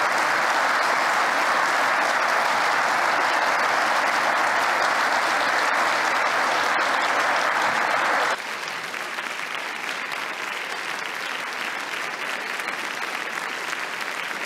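A theatre audience applauding: dense, steady clapping that drops suddenly to a lower level about eight seconds in and carries on.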